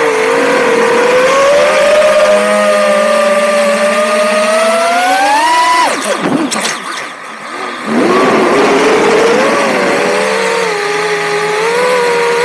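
FPV racing drone's brushless motors and propellers whining in flight. The pitch climbs steadily to a high whine about six seconds in, then drops sharply as the throttle comes off; after a quieter lull of about two seconds the motors spool back up and the pitch wavers with the throttle.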